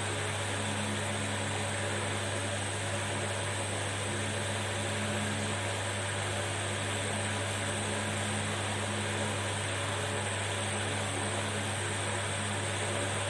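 Hot-air rework gun blowing steadily on a phone's charging connector to melt the solder beneath it: an even rush of air over a constant low hum.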